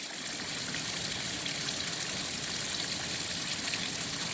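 Water running steadily through a hydroponic growing system.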